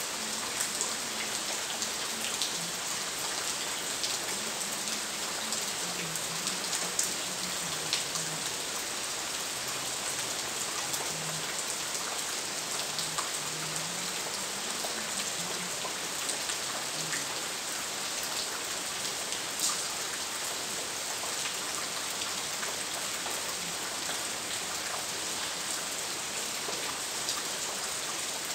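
Steady rain, an even hiss with many small drops ticking close by. Faintly under it, a low sound wavers in pitch on and off.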